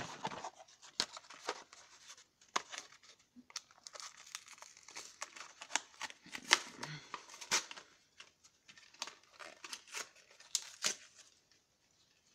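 Cardboard toy packaging being torn and crinkled by hand, in an irregular run of sharp rips and clicks that stops about a second before the end.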